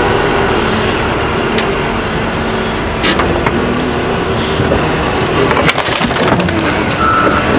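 Hitachi wheel loader's diesel engine running under load as its forks shove a pickup truck against a school bus, with occasional sharp metal knocks. A reversing alarm starts beeping near the end.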